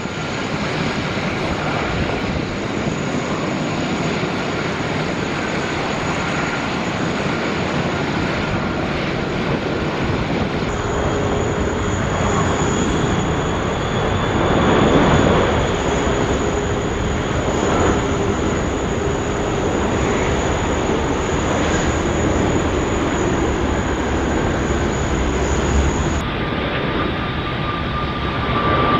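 Four-engined jet airliners on final approach, first an Airbus A380 and then a Boeing 747, their turbofan engines making a steady rumble with a faint whine. The noise swells slightly about halfway through as the 747 passes closest.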